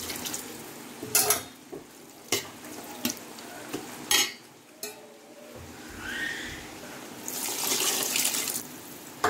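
Water poured from a vessel into a metal cooking pot of masala-coated soya chunks, splashing onto the food, in two spells, near the start and again near the end. Between the pours, sharp metal clinks as the skimmer ladle and vessel knock against the pot.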